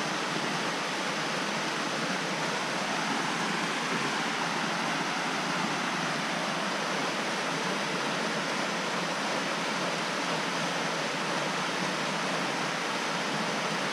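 Steady rush of a small woodland waterfall cascading over rock into a pool.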